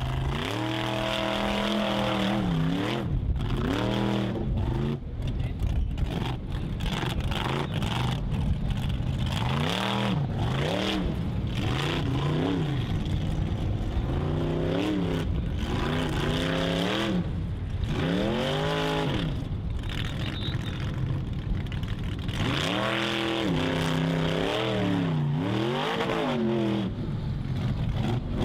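Formula Offroad buggy's engine revving hard and dropping back again and again as the car claws up a steep dirt hill climb.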